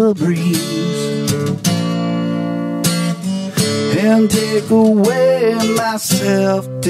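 Acoustic guitar strummed steadily, with a man's voice singing along at times over the chords.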